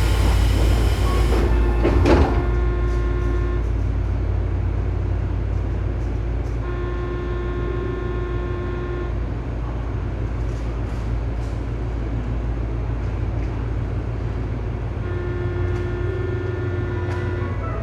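A Tobu 9000 series train is running, heard from above a motor car whose armature chopper control makes an abnormal noise. A steady low rumble runs throughout. Over it, the chopper gives a steady whine of several tones that cuts in and out three times. There is a short loud rush of noise at the start and a knock about two seconds in.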